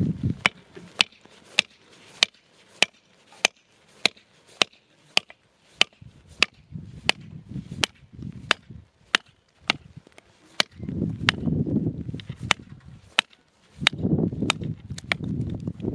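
A handmade steel bushcraft knife being batoned through a short stick on a stump: a baton strikes the knife's spine in a steady rhythm of sharp knocks, a bit under two a second. A low rumble comes and goes in the middle and near the end.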